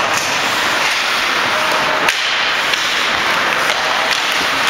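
Ice hockey rink sound during play: a steady wash of arena noise with skates and sticks on the ice, and one sharp crack about two seconds in, with a few lighter clicks.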